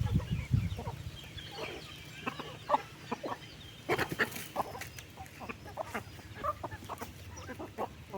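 A flock of chickens clucking, with many short scattered calls and ticks, a low rumble at the very start, and a brief noisy burst about halfway through.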